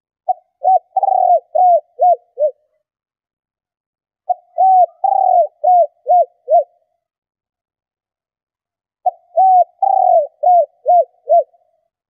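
Female spotted dove cooing, a recording used to stir male doves into calling. It gives three phrases about four seconds apart, each a run of about six short arched coos, the last notes dropping in pitch.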